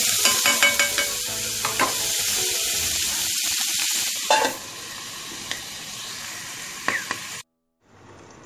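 Ivy gourd and onion slices sizzling in hot oil in a metal kadai, with a wooden spatula clicking against the pan as they are stirred. About four seconds in, a metal lid knocks down onto the pan and the sizzle falls to a softer, muffled hiss. The sound cuts out for a moment near the end.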